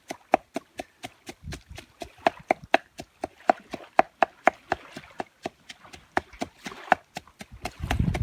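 Rapid chopping: a knife striking a cutting board about four to five times a second, each stroke a sharp, slightly ringing knock.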